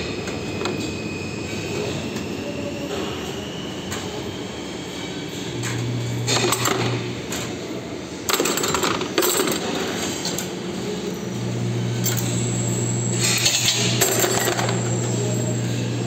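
Bent steel wire parts clinking sharply against each other, over the running noise of a CNC wire bending machine whose low motor hum cuts in briefly and then returns for the second half.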